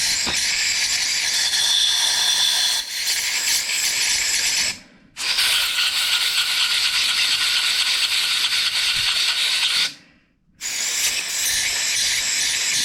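Compressed air hissing as it is blown through the carburetor body's small passages and idle-jet holes of a 1976 Johnson 6 hp outboard, clearing out gum and carb cleaner. It comes in three long blasts, with short breaks about five and ten seconds in.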